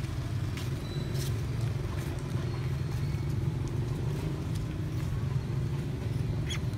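Steady low hum of a motorbike engine running, as on a tuk-tuk, with a few faint clicks over it.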